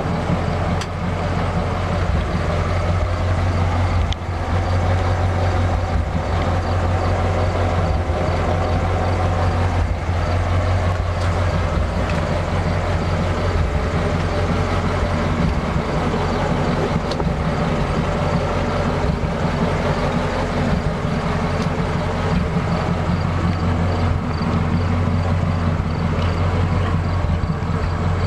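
1939 Ford half-ton pickup's flathead V8 idling steadily, a low even rumble.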